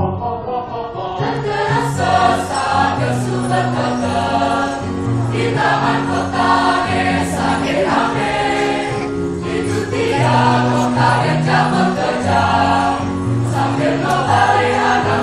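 Mixed school choir singing in several-part harmony, low voices holding sustained notes under the higher parts.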